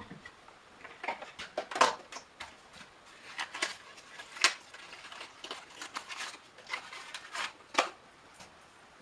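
Irregular small clicks and rattles of plastic and metal lamp fittings, a bulb socket and its parts, being handled and fitted by hand, with a few sharper clicks among them.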